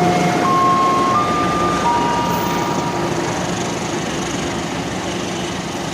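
Passenger train running by on the rails, a loud steady rumble of wheels and carriages. In the first three seconds it carries a few faint steady tones that step up and down in pitch.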